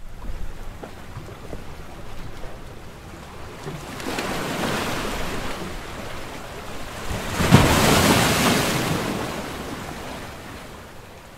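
Ocean surf sound effect: a rushing wash of waves that builds about four seconds in, is loudest a little past halfway, then slowly fades away.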